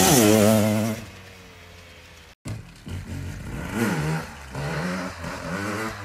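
Dirt bike engine revving loudly as it passes close by, then dropping away. After a sudden cut, a dirt bike revs up several times at a distance.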